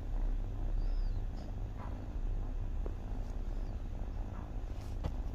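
A kitten chewing dry kibble taken from a hand, a few faint crunches over a steady low rumble.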